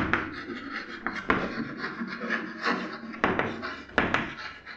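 Chalk writing on a blackboard: scratchy strokes with several sharp taps as the chalk strikes the board to form letters.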